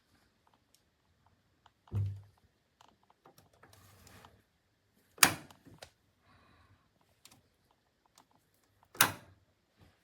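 Clicks and knocks from handling a microwave oven: a dull thump about two seconds in, then two sharp, loud clicks about four seconds apart, with a few faint ticks between.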